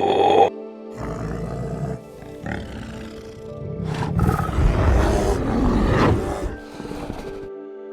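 A big cat growling and roaring in deep, rough, swelling calls, loudest about four to six seconds in, over background music.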